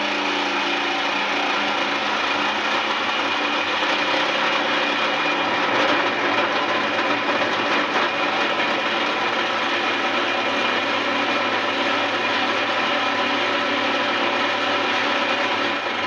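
Porter-Cable power saw with a fine-tooth metal blade running steadily, cutting through the thin steel wall of a hot water tank.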